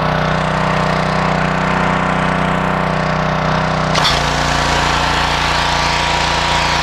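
Gas-engine pressure washer (3000 psi, 2.5 gpm) running steadily. About four seconds in there is a sudden change: a hiss spreads higher and the engine note shifts, which fits the wand being triggered and the high-pressure spray starting.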